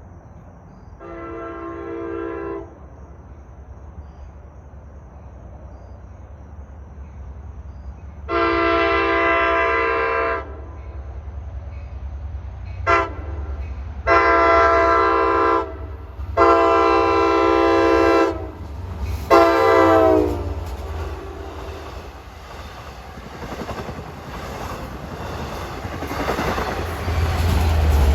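Nathan K5LA five-chime air horn on an LIRR DE30AC diesel locomotive sounding six blasts: a short, fainter one, then a long one, a very short one and three more long ones close together. The pitch of the last blast drops at its end. Beneath the horn the train's low rumble grows louder toward the end as it nears.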